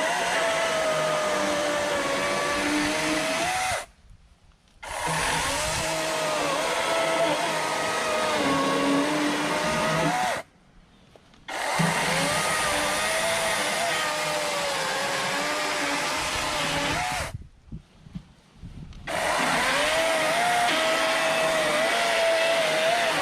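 Cordless electric chainsaw running on two batteries, its motor giving a steady whine that wavers up and down in pitch. The sound cuts out three times, for about a second each.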